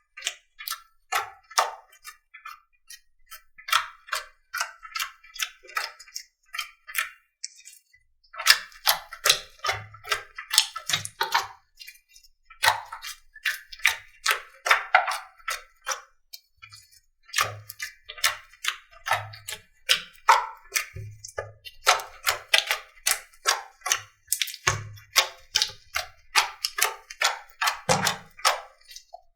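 Slime being squeezed and poked by hand: rapid sticky clicks and pops, sparser at first and packed tightly from about eight seconds in, with a dull low thump now and then.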